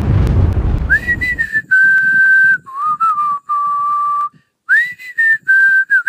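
A loud rush of noise that fades out over the first second and a half, then a short whistled tune of held notes, pausing briefly about two thirds of the way through.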